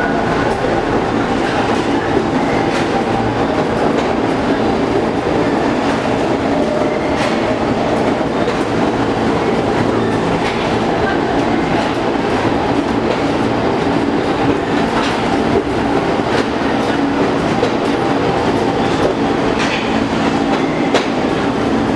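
R46 subway train running along the platform, a steady rumble with wheels clacking over the rail joints.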